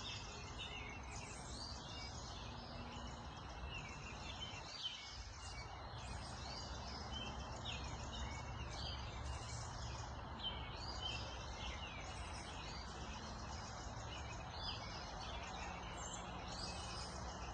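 Dawn chorus of many songbirds singing, with overlapping chirps, trills and quick whistled phrases, over a steady low rumble of background noise.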